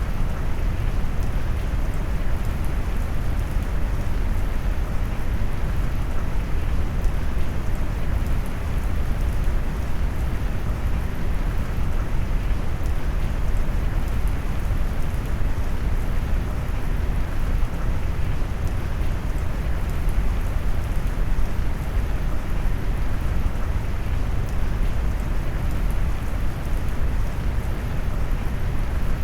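Steady brown noise blended with rain sound: a deep, even rushing hiss, strongest in the low end and muffled in the highs, with no changes or distinct events.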